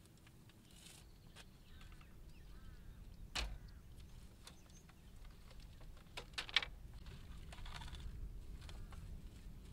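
Dry grass stalks rustling and crackling as a tangled clump is pulled apart and shaken out, with a few sharp clicks and snaps, the loudest about three and a half seconds in and a quick pair a little after six seconds.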